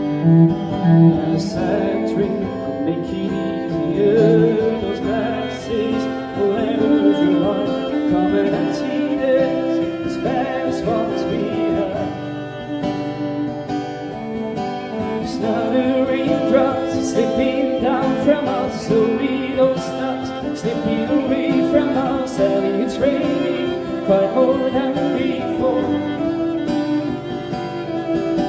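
Instrumental break: acoustic guitar strummed under a bowed cello playing long held melody notes.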